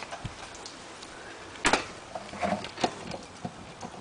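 A few separate clicks and knocks from handling the washing machine's electric cord and plug, the loudest a sharp click about a second and a half in. No motor is running.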